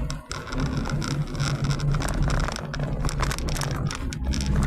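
Car driving on a highway, heard from inside the cabin: a steady low engine and road hum with tyre and wind noise and scattered crackling clicks.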